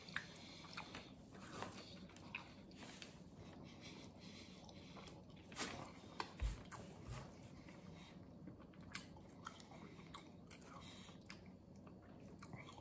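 A man chewing bites of a soft sub sandwich with its meat-free steak and cheese: faint wet mouth noises and small clicks. A low thump about six and a half seconds in is the loudest sound.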